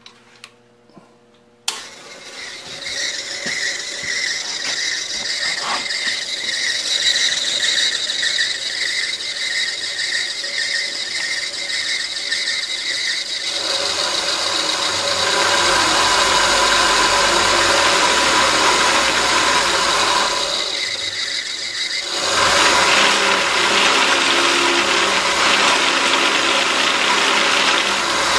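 Treadmill DC motor driving a 4x6 metal-cutting band saw through a V-belt. After two small clicks it starts suddenly about two seconds in and runs with a steady high whine. About halfway through the sound grows louder and rougher, drops back briefly, then returns.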